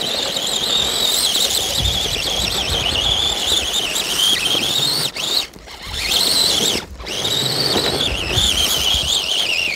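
Electric motor and gears of a scale RC 4x4 truck whining at a high pitch that wavers up and down with the throttle as the truck spins its tyres in snow. The whine drops out briefly twice, about five and a half and seven seconds in.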